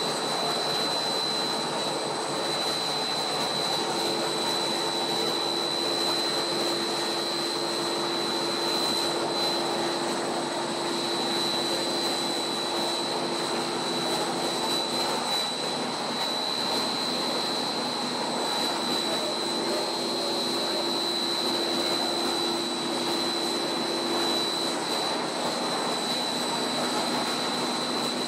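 Monolayer blown film extrusion line running: steady machine noise from its motors and air blowers, with a constant high whine over it and a lower hum that comes and goes.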